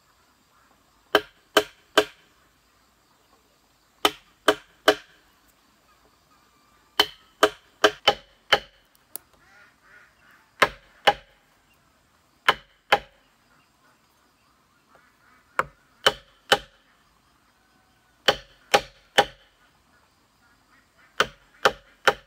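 A chisel-like blade hammered into a green bamboo pole: sharp, ringing knocks in quick groups of two to five, a new group every two to three seconds.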